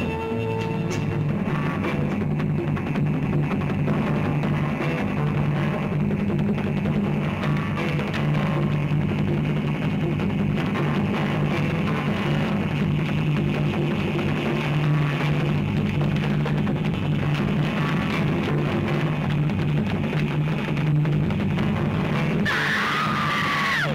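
Rock-style trailer score with drums and guitar, dense and steady with a heavy low end. A high wavering sound cuts in near the end.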